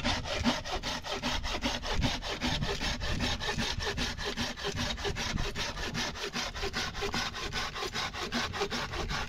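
Rapid, even rasping strokes, about six a second, kept up steadily, like something being rubbed or sawn back and forth.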